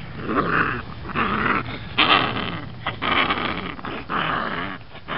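Five-week-old puppy growling in about five short bursts, each rising and falling in pitch, while it is handled.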